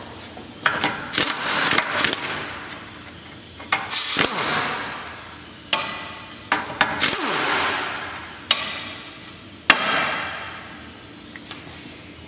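A hammer striking metal about ten times at irregular intervals, roughly one blow every second or so, each blow ringing out briefly afterwards.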